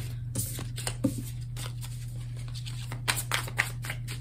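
Tarot cards being shuffled by hand: a few short snaps and flicks in the first second, then a quicker cluster about three seconds in, over a steady low hum.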